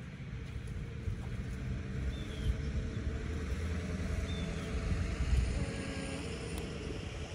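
Low engine rumble of a passing motor vehicle, swelling to its loudest about five seconds in and then easing off. A bird gives a few short high chirps over it.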